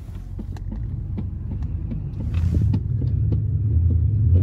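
Low, steady rumble of road noise inside a moving vehicle's cab, with scattered light clicks.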